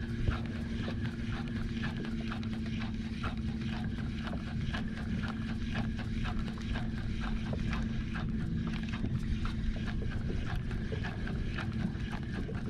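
Steady hum of the Minn Kota electric motor on an Old Town Sportsman 106 kayak, holding one pitch, with irregular light clicks and taps over it.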